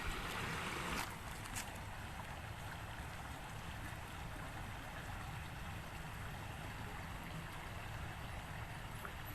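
Steady outdoor background noise with a low rumble, with a couple of faint clicks about a second in.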